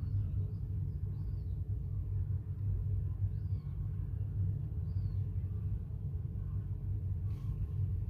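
Steady low rumble, with about five faint, short, high-pitched peeps from herring gull chicks spread through it.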